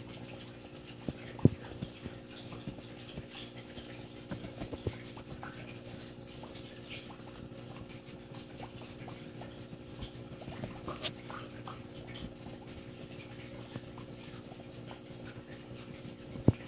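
Aquarium pump humming steadily, with faint irregular clicks and ticks over it, and a sharp louder click about a second and a half in and another near the end.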